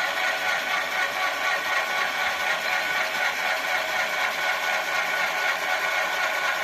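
Drill motor of a small PLC-controlled automatic drilling machine running steadily with an even whir while it drills a hole in a workpiece.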